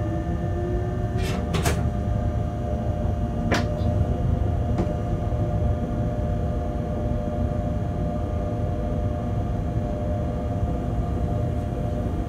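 Bombardier TRAXX BR186 electric locomotive running slowly through a freight yard, heard from inside the cab: a steady low rumble with a constant motor hum. A rising whine fades out about a second in, and four sharp clicks come in the first five seconds.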